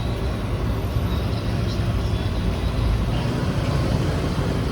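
Rented motorbike being ridden: a small engine running under a steady, buffeting rumble of wind and road noise.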